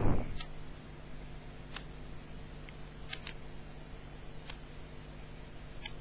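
Quiet room tone: a steady low electrical hum with faint hiss, and a soft click about every second and a half at a very even pace.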